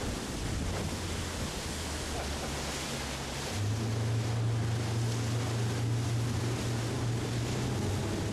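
A pontoon boat's outboard motor running at speed, its hum growing louder about three and a half seconds in, over wind on the microphone and the rush of churning wake water.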